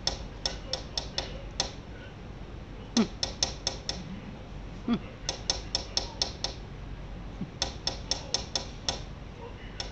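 A chattering lory clicking in quick runs of six or seven sharp clicks, about five a second, four runs with short pauses between. Two short low falling sounds come about three and five seconds in, the first the loudest moment.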